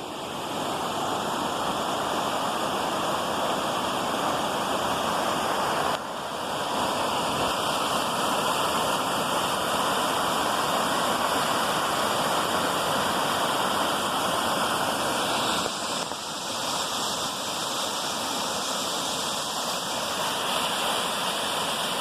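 Waterfall: water pouring and splashing in a steady rush, dipping briefly about six seconds in and again around sixteen seconds.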